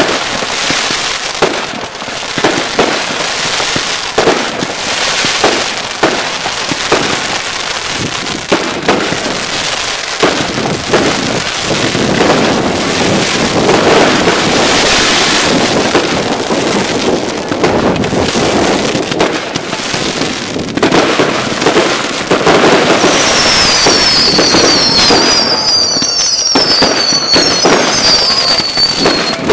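Consumer firework cakes firing in quick succession: a dense run of bangs and crackling as shots burst overhead, with a string of high falling whistles near the end.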